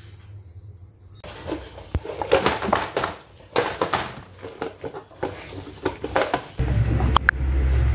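A dog eating homemade food from a plastic bowl: quick, irregular wet chewing and smacking. Near the end a low, steady music bed comes in.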